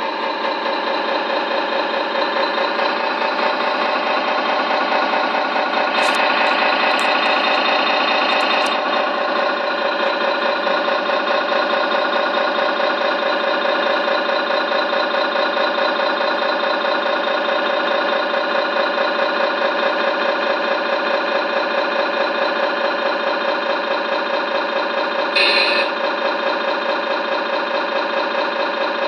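RC truck sound unit playing a simulated diesel engine idling, with a steady, evenly pulsing note. It grows a little louder with a few clicks from about six to nine seconds in, and a brief higher sound cuts in once about 25 seconds in.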